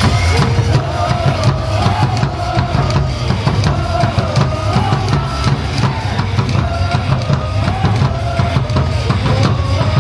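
Loud baseball cheer music with a drum-kit beat, heavy bass drum and a melody line over it.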